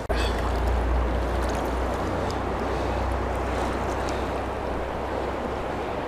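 Steady rush of a fast-flowing river running high, with a low rumble underneath that eases off about halfway through.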